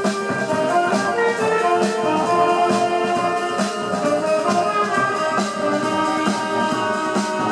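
Wind band playing live: brass and woodwinds carry a melody over a steady drum beat.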